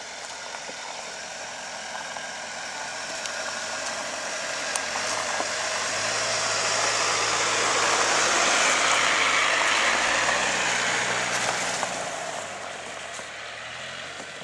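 Jeep Cherokee SUV driving past over a snowy dirt track. The engine and tyre noise grow as it approaches, are loudest as it passes close about eight seconds in, then fade as it drives away.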